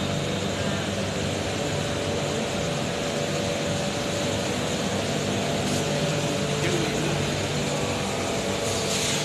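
BTS Skytrain train standing at the platform with its doors open, a steady machine hum with a couple of held tones. A brief hiss near the end.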